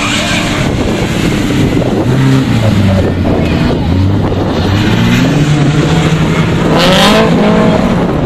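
Autocross race car engines running hard around the track: the engine note drops about two seconds in, then climbs steadily as the cars accelerate, with a sharp rising rev near the end.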